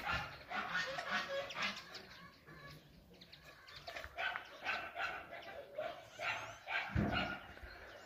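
Farmyard animals calling: a run of short, repeated calls, with a quieter stretch in the middle and a heavier call about seven seconds in.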